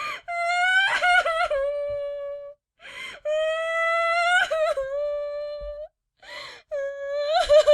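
A girl crying hard: long, drawn-out high wails, each held for about two seconds, broken by sharp gasping in-breaths, with three wails and two gasps in all.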